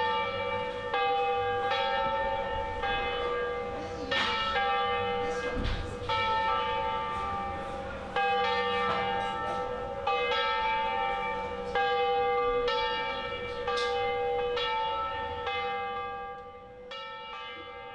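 Church bells ringing, struck about once a second with the strokes alternating in pitch and ringing on over one another in a steady hum.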